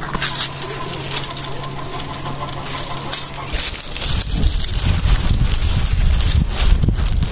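Dry date-palm fronds and a woven palm-leaf basket crackling and rustling as they catch fire and are pushed into a clay tandoor to light it. A low rumble comes in about halfway through.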